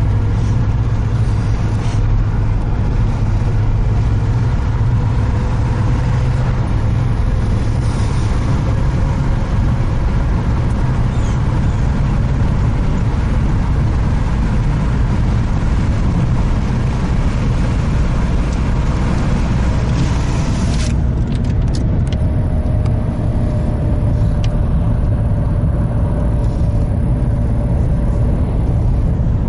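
Car driving, heard from inside the cabin: a steady engine and road rumble with tyre hiss, the hiss thinning out about two-thirds of the way through.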